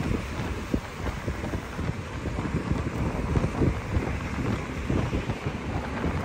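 Wind buffeting the microphone: a steady low rumble with irregular gusty thumps.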